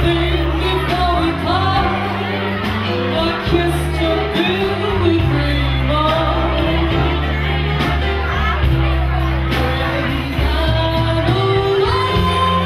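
Woman singing lead into a microphone over a live band with guitar and drum kit, her melody wavering over held low bass notes.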